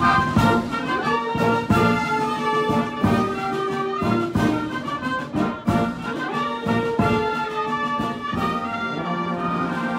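Military band of brass and woodwind playing a fanfare, with trombones and tubas holding loud chords and sharp accented beats at a steady pulse.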